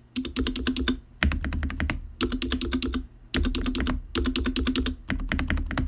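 Mechanical keyboard keys being typed in quick clattering runs: about four bursts of rapid keystrokes, each under a second, separated by brief pauses.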